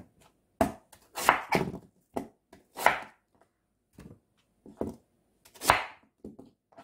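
Chef's knife chopping a white Korean radish into chunks on a wooden cutting board: a string of uneven knocks as the blade cuts through and strikes the board, some with a short scrape.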